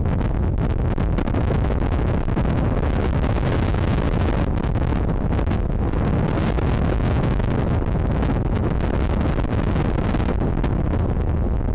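Wind buffeting the microphone: a steady, heavy rumble with a thin hiss above it.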